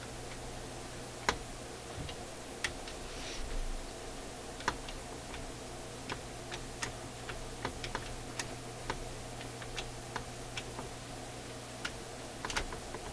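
Light metallic clicks, irregularly spaced and about twenty in all, as a finger pushes the levers of a Marconi fold-out record player's automatic shut-off linkage back and forth, over a steady low hum.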